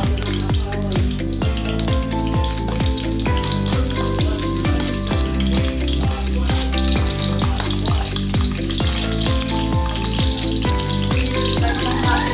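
Chopped garlic sizzling in hot canola oil in a pan, a steady frying hiss. Background music with a steady drum beat and bass runs underneath, as loud as the frying.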